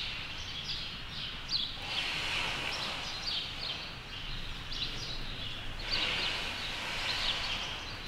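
Small birds chirping in short, high, repeated notes over a steady background noise.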